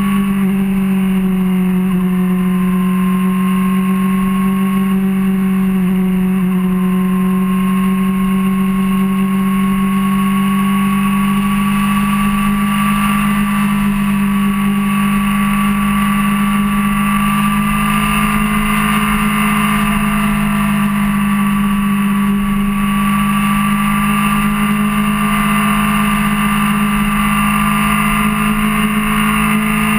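Suzuki GSR600 inline-four engine running at a steady highway cruise, one held engine note that slowly rises a little in pitch, over a constant rush of wind and road noise.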